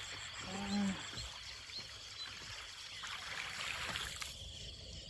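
Water trickling and lapping against a small paddle boat, with a short low hum about half a second in and a louder splashy hiss around three to four seconds in.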